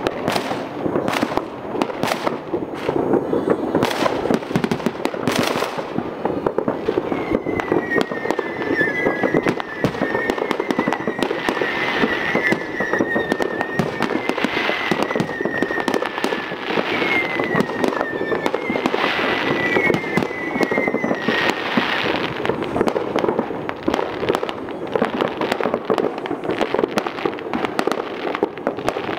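Many fireworks going off at once: a continuous, dense rattle of bangs and crackles. Short wavering high whistles come again and again through the middle stretch.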